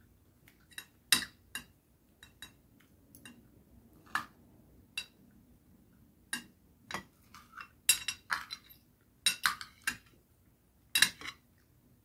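Metal spoon and fork clinking and scraping against a plate while eating. There are many irregular clinks, bunched into quicker clusters in the second half.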